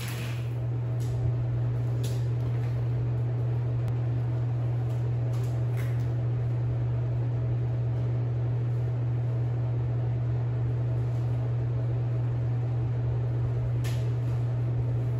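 A steady low mechanical hum, like a fan or cooler running, holding one level throughout, with a few faint clicks and taps over it.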